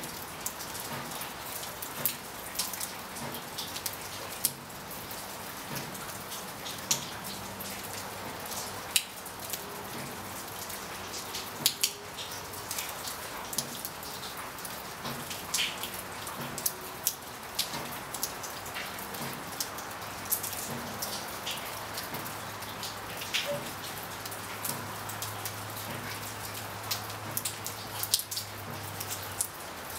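Steady rain falling in a winter rain storm: an even hiss of rain with frequent sharp taps of individual drops landing close by.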